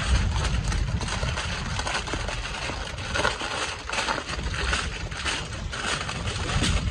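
Aluminum foil being folded and crimped by hand into a packet, crinkling in irregular crackly bursts over a low rumble.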